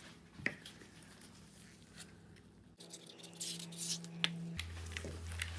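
Light clicks and taps from small-scale handling of dye bottles and resin cups. A steady low hum comes in about two-thirds of the way through.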